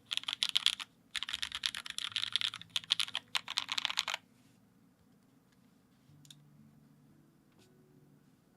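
Fast typing on a Dalco 959 mini mechanical keyboard with lubed Hyperglide Cherry MX Black linear switches on an aluminum plate under GMK keycaps: a dense run of key presses and bottom-outs. The typing stops about four seconds in, leaving only a faint low background tone.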